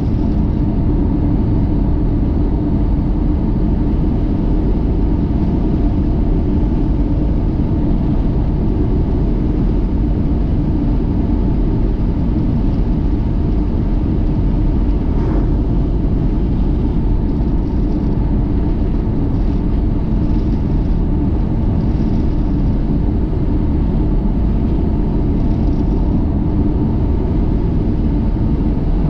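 Steady rumble of a car being driven, road and engine noise running evenly with no marked changes.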